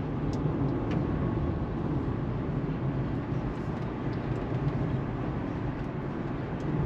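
A vehicle driving, heard from inside: a steady low rumble of engine and road noise.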